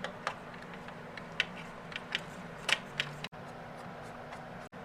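Scattered light clicks and taps of small metal hardware being handled, as the nuts that hold an AIO liquid cooler's pump block go onto the mounting studs, over a low steady hum.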